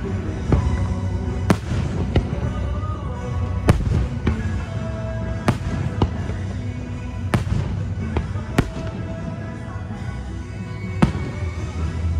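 Fireworks shells bursting with sharp bangs, about seven of them, one every one to two seconds, over music from the show's soundtrack.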